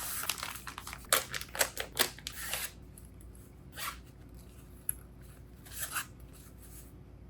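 Product packaging being handled and opened by hand: a quick run of clicks, rustles and short tearing swishes in the first two or three seconds, then three more single ones spaced about a second apart.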